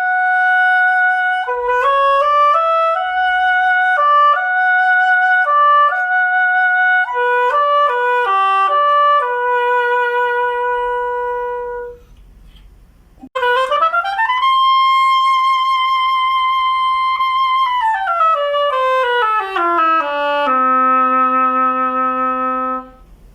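Ob-10-2 oboe played solo: a stepwise melodic phrase ending on a held note, a short pause, then a quick upward run to a long sustained high note and a descending scale down to a held note near the bottom of the instrument's range.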